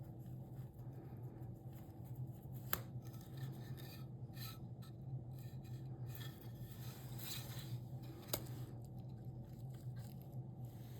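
Hand tool scraping and shaving cherry wood in short, uneven strokes, with two sharp clicks, about three and eight seconds in, over a steady low hum.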